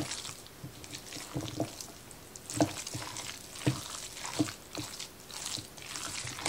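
Wooden spoon stirring a wet mix of raw ground beef, diced onion and bell pepper in a mixing bowl, with a few irregular knocks of the wood against the bowl.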